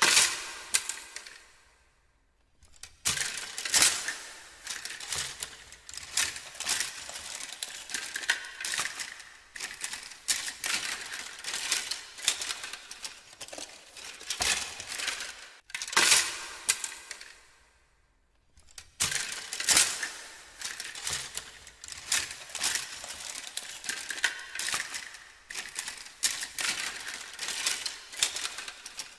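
Someone rummaging through a pile of hard objects: repeated clattering, knocking and clinking as things are pushed aside and moved, with a louder knock now and then and two brief pauses.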